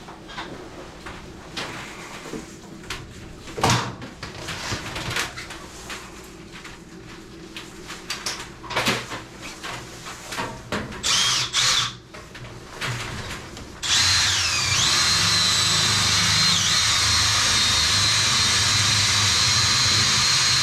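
A drill-driven dryer vent cleaning brush: knocks and scraping as the rig is handled, and a brief spin of the drill about eleven seconds in. Then, from about fourteen seconds, the drill runs steadily and loudly with a high whine and a low rumble, spinning the brush in the vent line.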